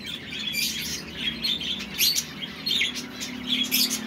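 Aviary of small finches chirping, many short high chirps overlapping one another without a break.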